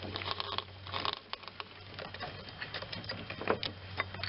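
Hands working a rubber serpentine belt under an idler pulley: irregular light clicks, taps and rubbing as the belt is fed and held in place.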